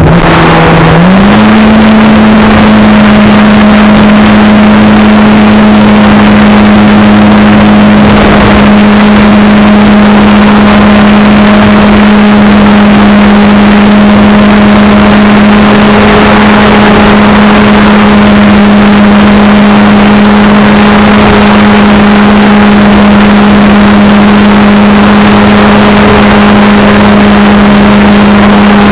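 RC airplane's motor and propeller running loud and steady at high throttle, its pitch rising over the first couple of seconds and then holding.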